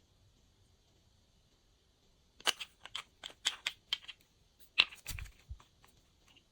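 Glossy slime being pressed and worked by hand, giving a run of sharp wet clicks and pops that starts about two and a half seconds in, with a soft low thud near the end.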